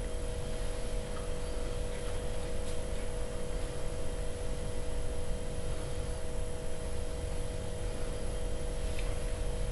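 Steady electrical hum with a constant hiss underneath, unchanging throughout.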